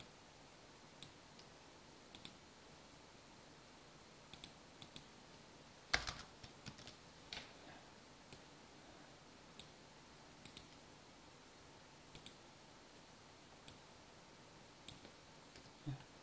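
Scattered, irregular single clicks of a computer mouse and keyboard over a faint steady hiss, with one louder knock about six seconds in.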